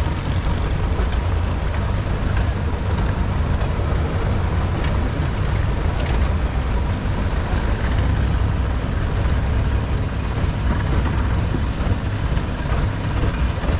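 Wooden longtail boat's engine running steadily at low speed, a deep, even drone with water washing along the hull.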